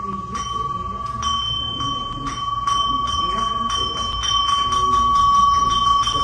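Buddhist bowl bell ringing with one steady, sustained tone that swells louder toward the end, with light ticks about four times a second over it: a mindfulness bell calling those present to stop all activity and be still.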